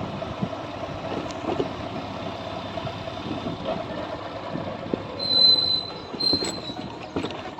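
Steady rumbling vehicle travel noise with a brief high squeal about five seconds into it, and again shortly after.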